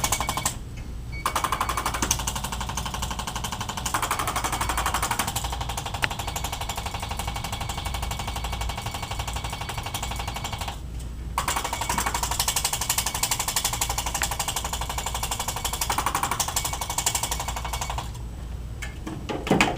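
Handheld electric percussion massager hammering rapidly. It starts about a second in, stops briefly about halfway, then runs again until shortly before the end.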